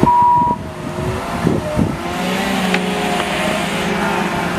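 Caterpillar 926M wheel loader: its reversing alarm gives a final beep at the start. Its diesel engine then runs on, revving up about two seconds in as the loader drives off.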